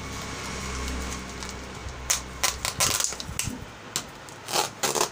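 Clear adhesive plastic document pouch being peeled off a taped cardboard shipping box, crinkling and crackling in short bursts about two seconds in and again near the end.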